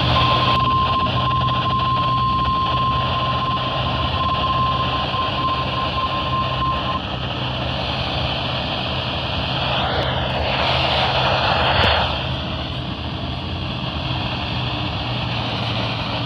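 NOAA Weather Radio's 1050 Hz warning alert tone: a steady single-pitch beep lasting about seven seconds, then cutting off, over a constant hiss. The hiss swells for about two seconds near the end.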